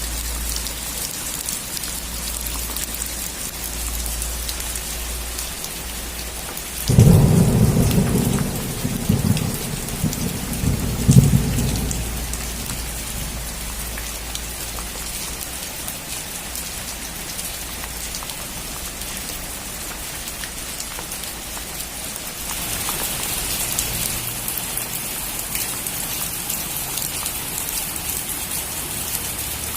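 Steady rain falling on a roof. About seven seconds in, a sudden loud thunderclap rumbles for about five seconds, with a second peak near the end of the rumble. Later the rain's hiss grows heavier.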